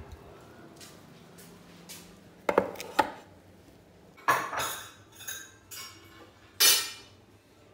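Metal muffin tin knocking and clattering as it is taken from the oven and set down on the counter: a few sharp clinks, then louder metallic clatters about four and six and a half seconds in.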